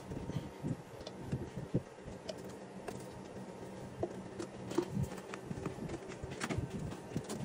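Light, scattered taps and knocks of PVC drain pipes and fittings being handled and fitted together, over a steady low hum.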